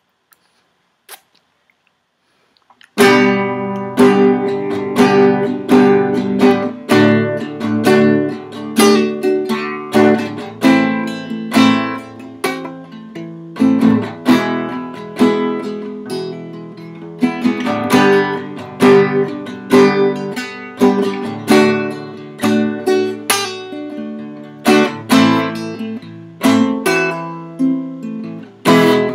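Acoustic guitar played solo: near silence with a faint click, then strummed chords start sharply about three seconds in and carry on in a steady rhythm.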